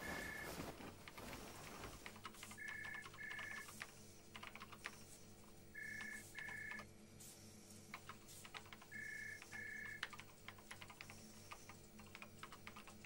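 Computer keyboard typing, quick light clicks over a low steady hum. A short double electronic beep repeats about every three seconds.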